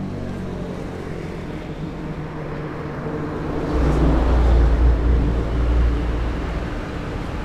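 A road vehicle passing by: a low rumble that swells about three seconds in, peaks and fades away over a few seconds, over steady street noise.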